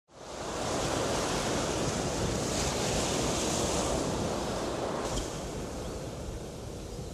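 Rough storm sea whipped up by a tropical cyclone: heavy surf breaking and churning under strong wind, a steady dense rush that comes in quickly at the start and eases slightly near the end.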